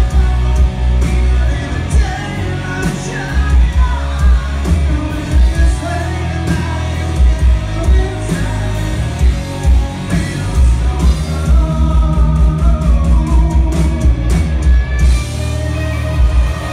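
Live rock band playing: electric guitar and a full drum kit, with a voice singing over them, recorded from within the crowd in a large hall.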